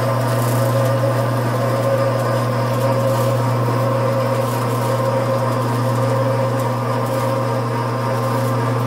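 JET J-8201K 14-inch metal/wood vertical bandsaw running with no cut under way: a loud, steady motor hum that does not change.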